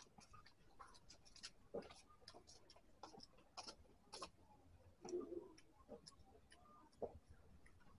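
Faint mouth sounds of someone eating rice by hand: irregular small clicks and smacks while chewing.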